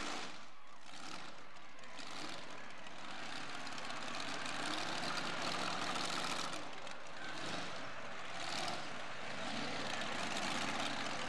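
Supercharged pulling truck's engine running at low speed after its pull, a rough idle that swells a few times.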